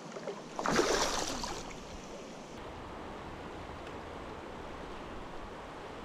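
Shallow river current rippling and splashing steadily, with a brief louder splash about a second in.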